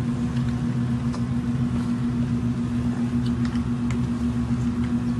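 Steady electrical hum of a kitchen machine, with a few faint soft ticks from hand-mixing chicken in a bucket of marinade.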